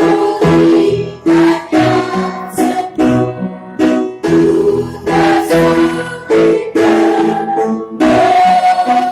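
Guitar music: chords struck in short rhythmic stabs with brief gaps between them.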